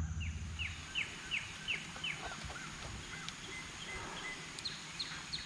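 Bald eagle calling: a series of short, high, down-slurred chirps, about two or three a second, followed by fainter, lower notes and a few more high chirps near the end.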